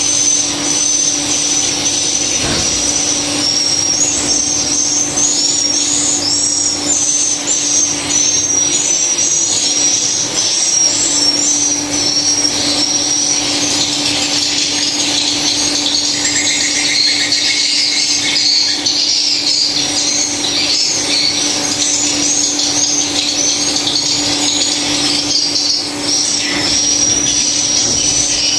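Dense, continuous chattering of many swiftlets: short high chirps overlapping without pause, over a steady low hum.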